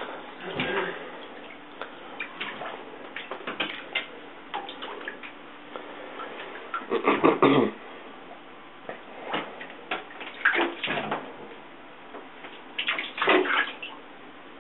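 Water splashing in a bathtub in short bursts as a Savannah F2 cat plays in it. The loudest splashes come about seven, ten and thirteen seconds in.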